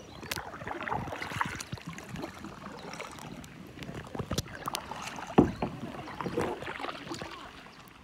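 Double-bladed kayak paddle strokes: the blades dip and pull through calm water with splashing and dripping, and a single louder knock comes a little past halfway.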